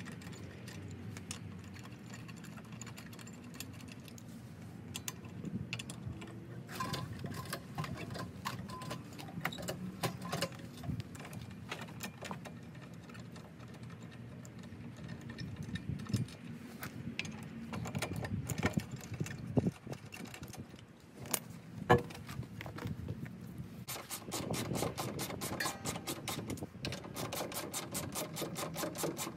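Car wheel lug nuts spun off by hand, with scattered light metallic clinks and one sharp knock about three-quarters through. In the last few seconds a socket ratchet clicks rapidly and evenly.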